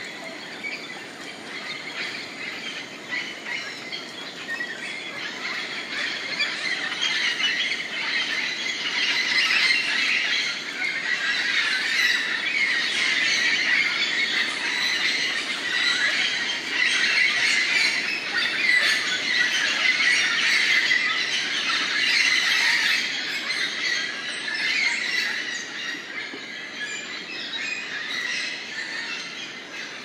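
Dense chorus of many rainforest birds calling over one another, full of squawks and squeals. It swells louder through the middle and eases off near the end.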